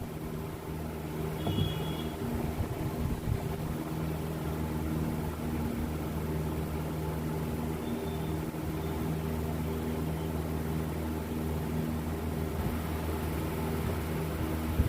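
Steady machine hum with a low, even drone, and a few light knocks in the first few seconds.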